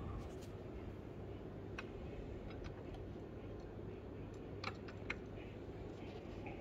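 A few light, scattered clicks and ticks over a steady low hum. The two loudest clicks come around five seconds in.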